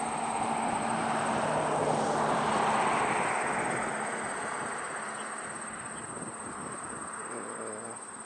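A passing engine: a low hum under a rushing noise that swells to a peak about three seconds in, then slowly fades away.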